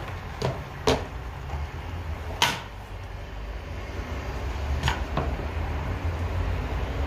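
Five short knocks and clinks of kitchen utensils and cookware over a steady low hum.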